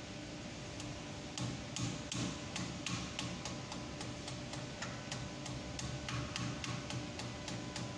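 Light, irregular clicks and taps, a few a second, as fingers work grease into a tapered roller bearing seated in a front wheel hub. The clicks come faster and louder, with soft low thuds, after about a second and a half.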